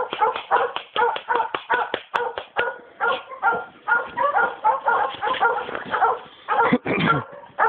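Dogs barking and yelping in quick succession, about three barks a second, with a short break about six and a half seconds in.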